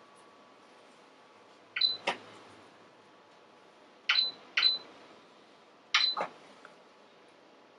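Front-panel buttons on an electronic gold and platinum tester pressed, each press giving a click and a short high beep: once about two seconds in, twice in quick succession around four seconds, and once more at six seconds.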